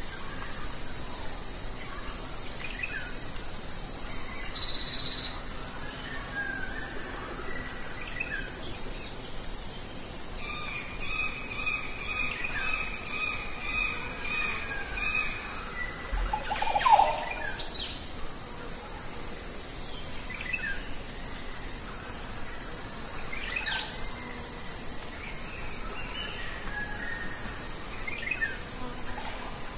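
Steady, high-pitched outdoor insect chorus, with scattered bird chirps and calls over it; one louder bird call stands out a little past halfway.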